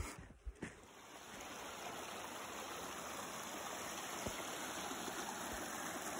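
Small snowmelt stream running over rocks, a steady rush of water that comes up about a second in, after a couple of brief knocks near the start.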